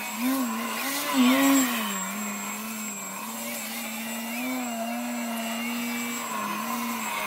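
Electric motor and propeller of a foam 3D aerobatic RC plane hovering nose-up, a steady buzzing whine whose pitch wavers up and down as the throttle is worked, with a louder, higher surge about a second and a half in.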